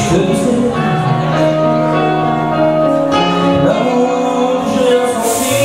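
A man singing into a microphone over amplified backing music, with long held notes and sustained low chords underneath.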